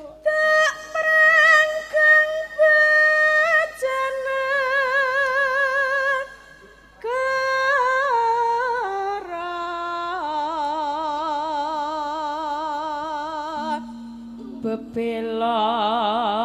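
A Javanese sindhen (female singer) singing a slow melismatic line of long held notes with a wide vibrato, sliding between pitches. The voice breaks off briefly about six seconds in and again near fourteen seconds.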